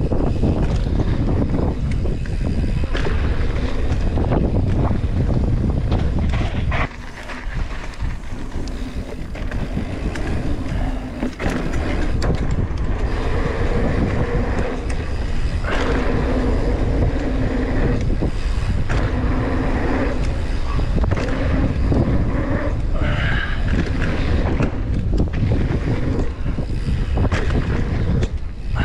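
Wind rushing over the microphone and tyre rumble from a mountain bike riding a dirt jump line, with scattered knocks as the bike lands and rolls over bumps.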